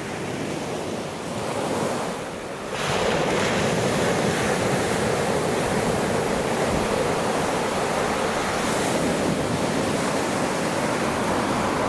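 Rough sea surf: waves breaking and washing on the shore, growing louder about three seconds in and then holding steady.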